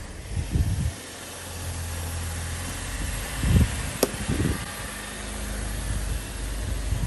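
A vehicle's engine running steadily as it drives over a plastic Milwaukee PACKOUT storage case. There are several low thumps and one sharp click about four seconds in.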